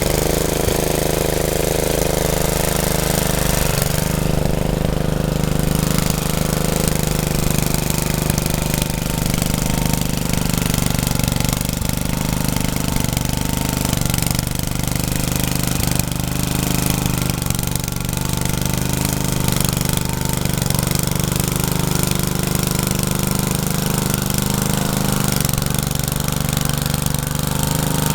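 Rebuilt Troy-Bilt rototiller engine running steadily with a rhythmic chugging clatter, its pitch sagging briefly several times.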